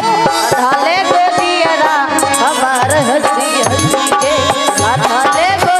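Live Hindi devotional bhajan: a woman singing an ornamented melody over hand-drum accompaniment. From about halfway in, low drum strokes come roughly twice a second.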